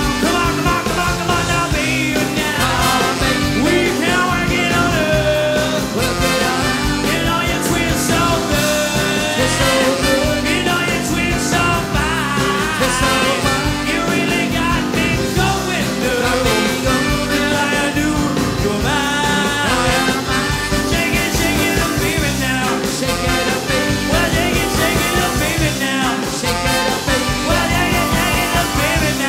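Swing band playing an up-tempo number, a wavering lead melody line over a steady beat.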